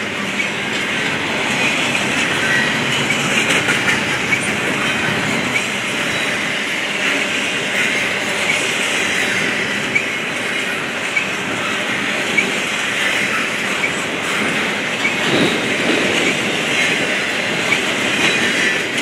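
Double-stack intermodal well cars rolling past: a steady rumble of steel wheels on rail with frequent wheel clacks and brief, faint wheel squeals.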